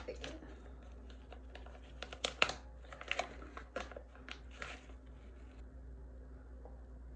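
Plastic sheet-mask pouch crinkling and tearing as it is ripped open and handled: a run of sharp crackles, loudest about two and a half seconds in, dying away after about five seconds.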